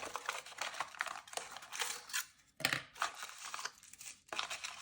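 Packaging of a small cardboard toy blind box crinkling and tearing as it is opened by hand, in a run of irregular crackles and rustles with brief pauses.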